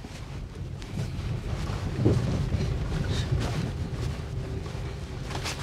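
In-cabin rumble of a Maruti Suzuki Baleno rolling slowly over a rough dirt track: tyre and suspension noise with small knocks, a heavier bump about two seconds in, and the low hum of its 1.2-litre petrol engine underneath.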